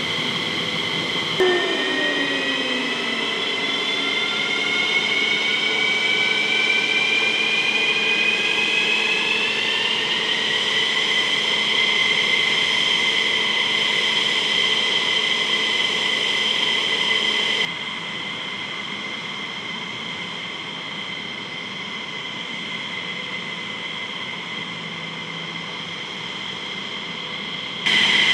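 F-15E Strike Eagle jet turbine whining on the ground. A high whine starts suddenly about a second and a half in, rises in pitch for about eight seconds as the engine spools up, then holds steady. It drops in level about two-thirds of the way through and jumps back up near the end.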